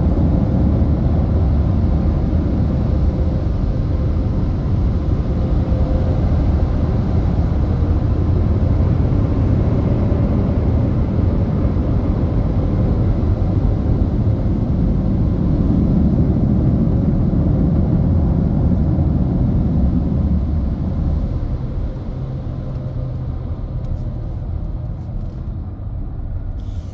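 Automatic car wash dryer blowers blowing air over the car, a loud steady rush heard from inside the car. It drops off about twenty seconds in as the car leaves the drying bay.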